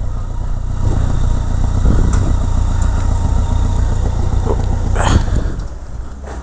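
BMW K1100LT motorcycle's four-cylinder engine running with wind and road noise, heard from a helmet-mounted camera while riding slowly through a town street. There is a short sharp noise about five seconds in, and the sound fades near the end.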